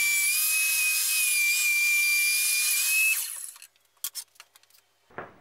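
Table saw running with a steady high whine and hiss, which cuts off about three seconds in. A few light clicks follow, then faint knocks of wood being handled near the end.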